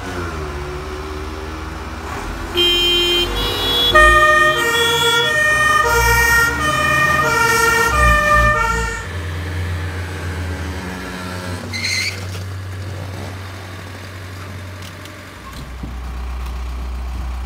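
Fire engine's two-tone siren sounding its alternating high-low call for about six seconds, starting a couple of seconds in, over the truck's engine running as it drives off. The siren stops and the engine carries on alone, with a brief high sound a few seconds later.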